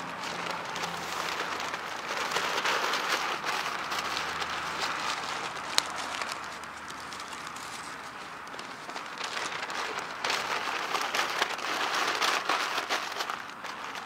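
Newspaper and kindling catching in a fire pit, crackling and hissing with many small pops and one sharp pop about six seconds in. It grows louder again about ten seconds in as added newspaper flares up.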